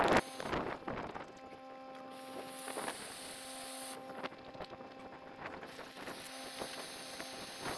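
Steady electric hum of an air pump inflating an air tent, with a few light, scattered knocks.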